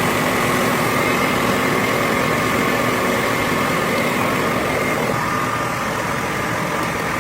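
Industrial machinery running steadily, a dense mechanical drone with a steady high whine.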